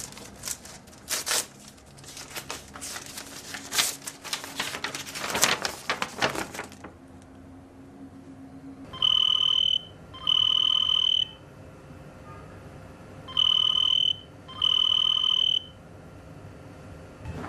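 Paper rustling and crinkling for several seconds as a letter is handled, then a telephone ringing with an electronic tone in a double-ring pattern: two rings, a pause, two more.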